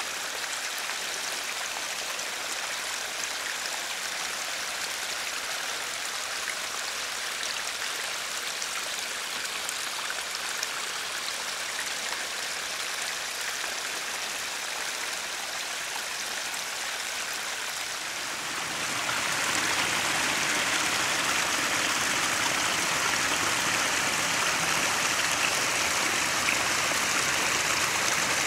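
Small spring-fed brook trickling and splashing steadily down a slope. About two-thirds of the way in, the water sound becomes louder and fuller as a stronger flow of the brook is heard.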